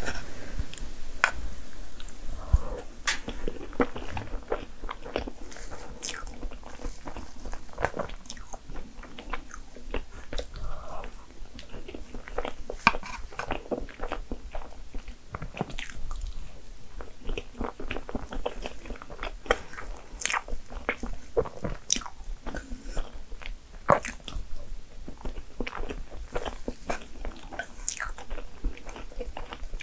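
Close-miked eating of crepe cake: chewing and wet mouth sounds with many small sharp clicks and smacks.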